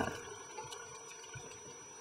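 Underwater ambience heard through a compact camera's underwater housing: a low, muffled wash with a few faint clicks and a steady faint high whine.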